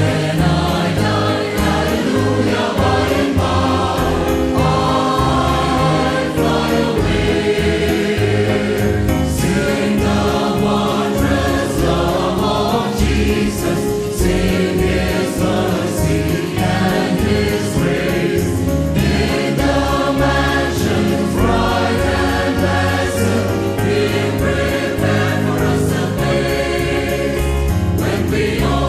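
A choir singing a gospel hymn, continuous and full throughout.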